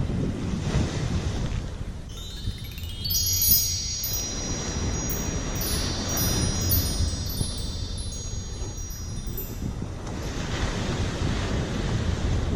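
A bite bell on a surf rod rings repeatedly for several seconds, signalling a fish pulling on the line. Steady wind on the microphone and surf run underneath.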